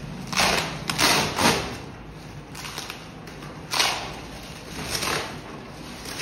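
Plastic wrap and bubble wrap being pulled and torn off a cardboard box, crinkling and rustling in several bursts. The loudest three come close together in the first second and a half, with weaker ones later.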